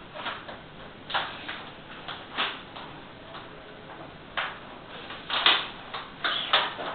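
A whiteboard sheet being pressed and worked against a wall by hand: a handful of short scraping strokes at irregular intervals, the loudest about five and a half seconds in.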